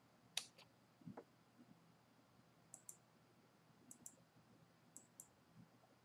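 Computer mouse button clicks against near silence: a louder sharp click and a soft knock in the first second, then three pairs of quick clicks about a second apart.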